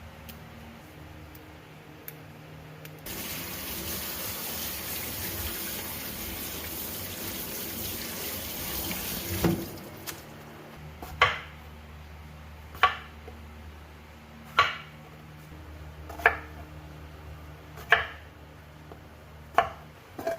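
A kitchen tap runs for about six seconds, then shuts off. After a short pause, six sharp knocks with a brief ring follow at an even pace, about one every second and a half.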